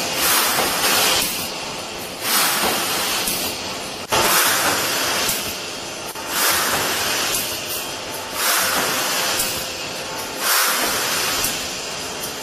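Food-factory machinery noise: a loud hiss that swells and fades in a regular rhythm, about once every two seconds.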